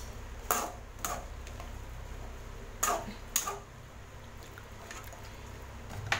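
A slotted metal spatula stirring a watery mixture of pumpkin pieces, tamarind water and spices in an aluminium pot, with four short knocks and scrapes against the pot in the first half.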